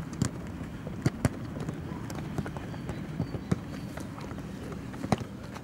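Irregular sharp thuds of footballs being kicked on a grass training pitch, about a dozen, the loudest around a second in and near the end, over a steady low outdoor rumble.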